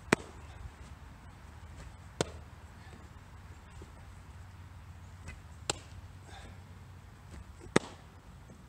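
Sharp pops of baseballs smacking into a catcher's mitt, four times about two seconds apart, over a steady low rumble.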